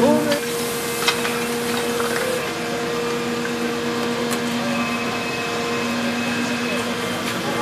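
A steady motor drone of firefighting equipment on a fireground, under a hissing background, with a few sharp cracks. The drone fades out near the end.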